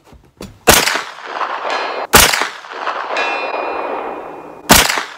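Three shots from a 9 mm AR-15 with a Foxtrot Mike 10.5-inch upper, about 1.5 and 2.5 seconds apart, each followed by a long echoing tail with a faint ring in it.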